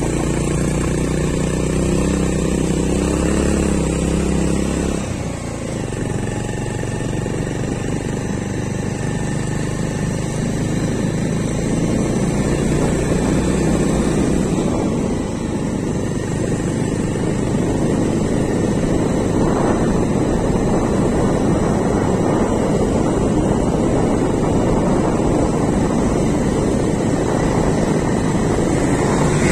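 Motorbike engine running steadily while riding along a road, its hum clear for about the first five seconds. After that it is largely buried under a dense rumble of wind rushing over the microphone.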